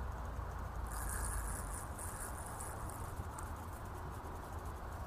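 Wind buffeting the microphone with a steady low rumble, with light rain ticking. A brief higher hiss comes in about a second in and fades out a couple of seconds later.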